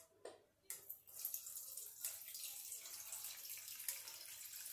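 Hot used sunflower frying oil poured from a frying pan into a metal bowl: a steady, faint trickling hiss after a couple of light knocks at the start.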